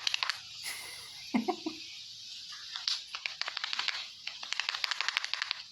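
Rapid crackling clicks, about eight to ten a second, from a barber's fingers working through a client's hair and over the scalp in an ASMR 'hair cracking' head massage. The clicks pause briefly in the middle, with one louder crack about a second and a half in, then resume.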